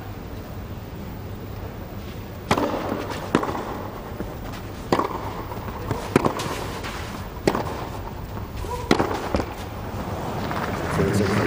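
Tennis ball struck back and forth by rackets in a baseline rally on clay, a sharp pock every second or so, about six strikes. Crowd applause rises near the end as the point is won.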